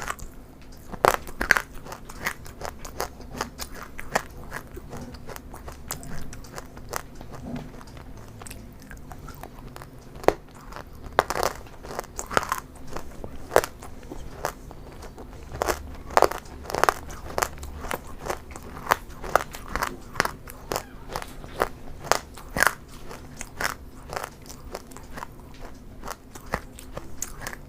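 Close-miked crunchy eating: a person biting and chewing something crisp, many sharp irregular crunches in a row.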